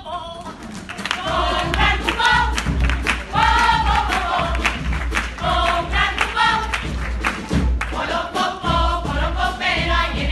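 A carnival group singing together in Spanish, with drum beats throughout and a strong low bass that comes in about a second in.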